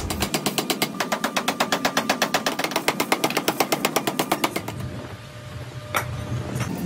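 Power hammer striking a red-hot steel billet in a forging die, forging a tractor wheel-axle blank, in rapid even blows about nine a second. The blows stop after about four and a half seconds, and a single sharp knock follows about a second later.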